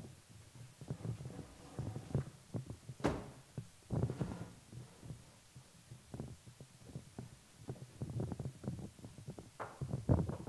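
A microphone stand being handled and set up, heard as irregular low thumps and knocks with one sharper knock about three seconds in.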